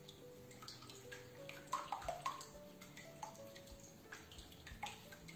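Small utensil stirring and beating eggs into cornstarch and lemon juice in a small bowl, making a quiet run of irregular light clicks and wet stirring sounds against the bowl.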